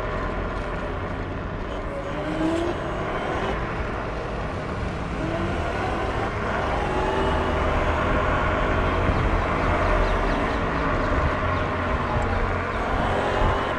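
Dual Pro electric scooter riding at road speed: steady wind noise on the microphone and tyre noise, with the motors' whine gliding up in pitch as it accelerates from about 23 to 35 km/h.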